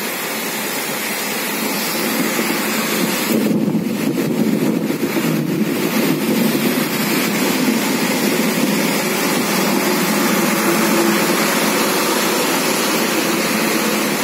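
Heavy rain in a strong wind, a steady loud rushing noise that grows a little louder about two seconds in.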